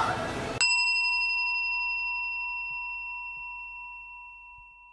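A single bell-like chime struck once about half a second in, then ringing out in one clear tone that fades away over about four seconds.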